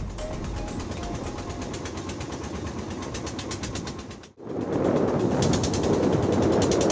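Engine of a small wooden fishing boat running under way with a fast, even chugging beat over water and wind noise. The sound drops out for an instant about four seconds in and comes back louder.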